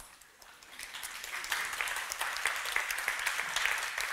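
Audience applauding: many hands clapping, swelling over the first second or so and then holding steady.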